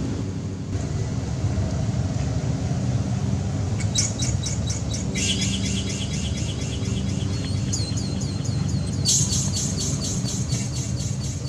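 A fast run of short, high-pitched chirps or squeals from a small animal, starting about four seconds in and strongest near the end, over a steady low rumble.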